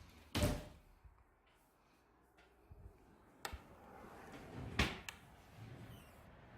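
Doors or cupboards being opened and shut in a small room: a few separate knocks and clunks, the loudest about half a second in and another near five seconds.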